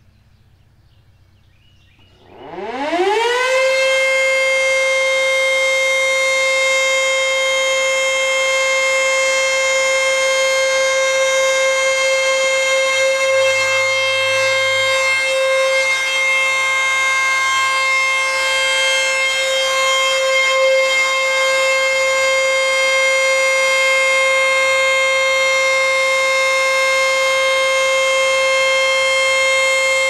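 ACA Screamer S-2 rotating electromechanical outdoor warning siren being tested on its steady Full Alert signal. After about two seconds of faint background it winds up fast, its pitch rising within about a second. It then holds a single loud, steady tone.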